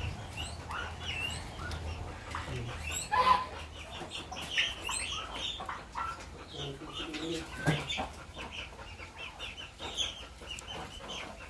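Chickens and chicks in a pen, many short peeps and clucks overlapping as they gather at feeding time.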